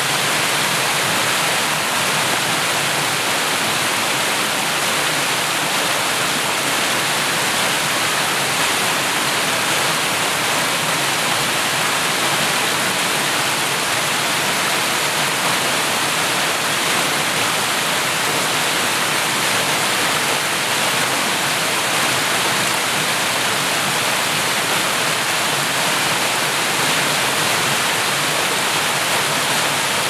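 Small creek waterfall cascading over stepped rock ledges: a steady, even rush of splashing water.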